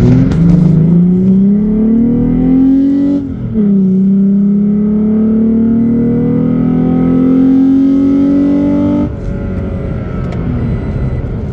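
2017 Toyota Tacoma engine fitted with a K&N Blackhawk cold air intake, heard from inside the cab while accelerating. The engine note climbs, drops at a gear change about three seconds in, and climbs again through the next gear. About nine seconds in it falls away quieter as the throttle comes off.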